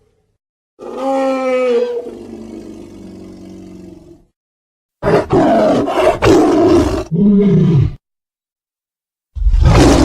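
Dinosaur roar sound effects for Agathaumus, a large horned ceratopsid, played as separate calls with silence between them. First comes a pitched, bellowing call that trails off. Then comes a harsher, rougher roar in several pulses that ends in a low falling groan, and another roar starts near the end.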